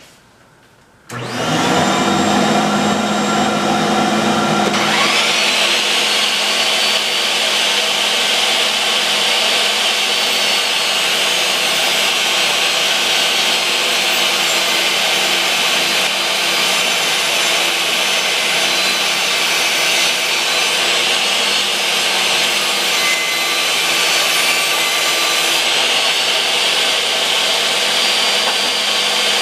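Table saw switched on about a second in and spinning up, then ripping a board lengthwise from about five seconds in, the blade cutting steadily through the wood; its whine lifts a little in pitch near the end.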